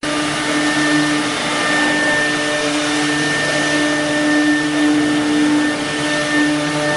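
CNC machine running: a steady mechanical whine with several held tones over an even rushing noise, without letting up.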